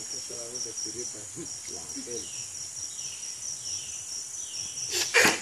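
Steady high-pitched chorus of insects, with faint voices murmuring underneath. About five seconds in, a single short, loud sound.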